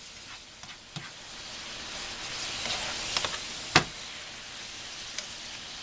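Mushrooms sizzling in a pan in their own juice, left uncovered so the water cooks off; the sizzle grows louder about two seconds in. A few light clicks and one sharp knock nearly four seconds in.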